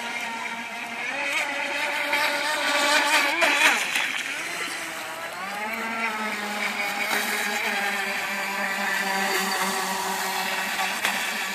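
Radio-controlled offshore speedboat running at speed across the water, its motor's pitch rising and falling as it accelerates and turns about three seconds in, then holding steady.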